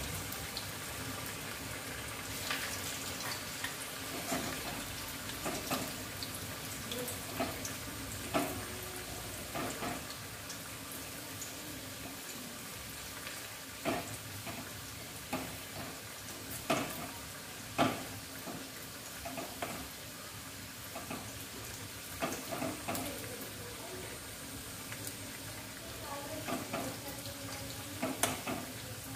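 Alu vadi slices deep-frying in hot oil in a kadhai, with a steady sizzle. Now and then come sharp clicks and taps as a slotted metal spoon moves the pieces against the pan.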